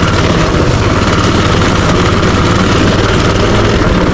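Minibike's small engine running steadily, its pitch and level holding even.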